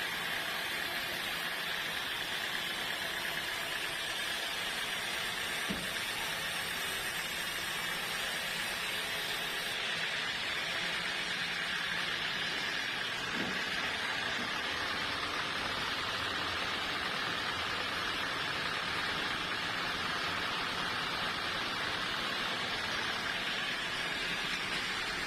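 Steady running noise from sawmill machinery, an even mechanical hum and hiss with no breaks, and a couple of faint knocks.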